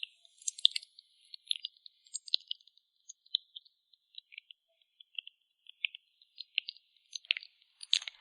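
Close-miked ASMR clicking and tapping: small, irregular, crisp clicks, about two or three a second, from makeup items being handled right at the microphone.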